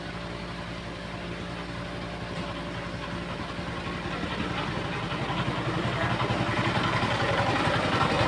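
Engine running at a steady idle, growing louder over the second half.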